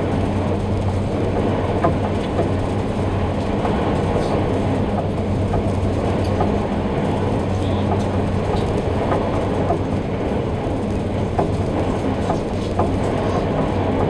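Passenger ferry under way, heard inside the cabin: a steady deep engine hum over a constant rushing noise, with a few light clicks and rattles.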